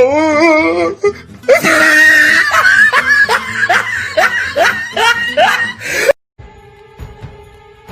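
A loud wavering wail, then loud screaming and laughing-like cries over music, cutting off suddenly about six seconds in to quieter background music with held notes.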